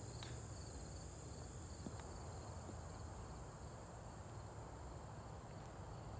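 A chorus of insects keeps up a steady, high-pitched chirring, with a fainter pulsing trill beneath it, over a low steady rumble.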